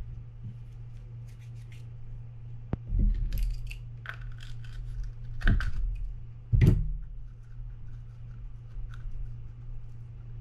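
Metal hand tools and small fishing-reel parts being picked up, handled and set down on a work mat: a few scattered clicks and clatters, the loudest about five and a half and six and a half seconds in.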